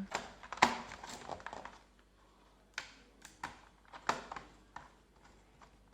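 Scattered small plastic and metal clicks and taps as a laptop's bottom cover panel is fitted and screwed down.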